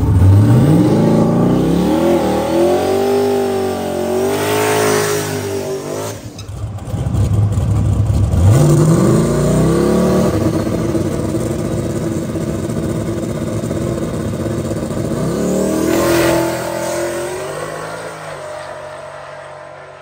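Drag race car engine revving hard, its pitch climbing three times with wavering revs between, then fading away over the last few seconds as the car pulls off down the strip.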